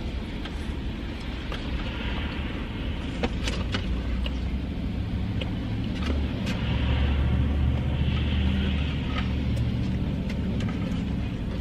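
Steady low rumble of a car running, swelling a little about midway, with a few sharp clicks and crunches of someone eating.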